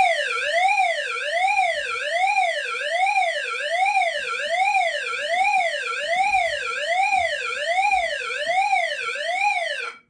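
Agent release pre-discharge signal played through a Wheelock E70 speaker strobe: an electronic siren tone sweeping up and down about 1.4 times a second. It cuts off suddenly near the end as the alarm is acknowledged at the panel.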